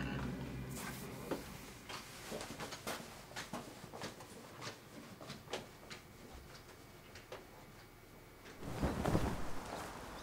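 Scattered light knocks and clicks of footsteps and handling in a small room, roughly two a second and fading, then a short louder rustle near the end.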